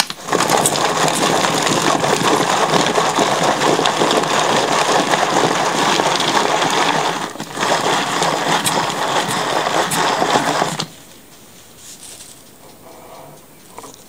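Hand-operated Master Slicer food chopper worked by hand, its blades chopping coarse onion slices with a loud continuous clatter. It pauses briefly about seven seconds in and stops about eleven seconds in.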